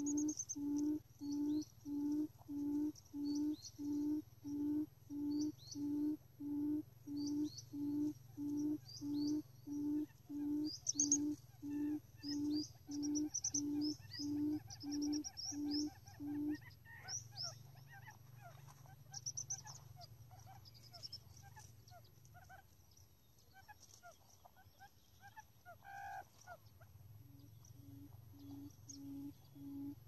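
Quail calling: a low, even hoot repeated about one and a half times a second, which stops about seventeen seconds in and starts again near the end. Small birds chirp high above it.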